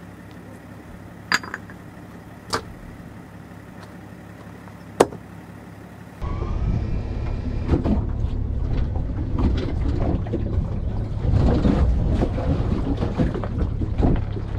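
A few sharp single knocks, then about six seconds in a loud, continuous rumble and crunch of the Opus OP15 camper trailer's off-road tyres and the tow vehicle rolling slowly over loose rocks and gravel, with many small crackles of stones shifting under the wheels.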